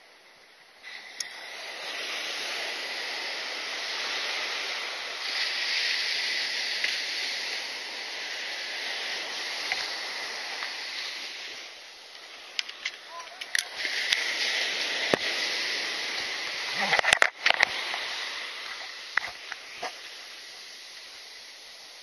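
Surf breaking and washing up a sandy beach, a steady hiss that eases a little past halfway and then returns. Scattered sharp clicks and knocks sound over it, with a loud cluster about three-quarters of the way in.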